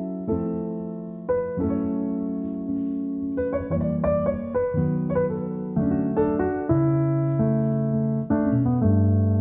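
Background piano music, with notes and chords struck and left to ring.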